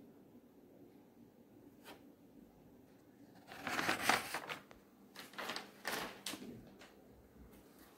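A metal spoon stirring and scraping chicken pieces in thick masala around a stainless-steel pressure cooker, in several strokes starting about three and a half seconds in, the loudest near the middle.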